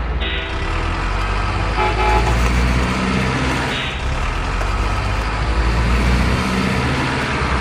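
Motor and gearbox of a WPL D12 RC pickup truck running as it drives, with its tyres rolling over stone paving.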